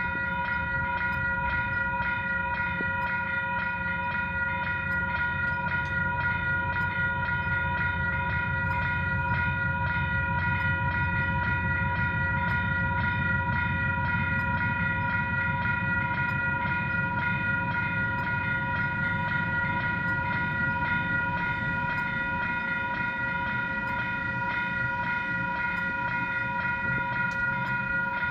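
Level crossing warning bells ringing in a steady, rapid high peal over the low rumble and clatter of a freight train passing over the crossing. The train is KiwiRail DX-class GE diesel locomotives hauling ballast wagons, and the rumble swells in the middle as the train goes through.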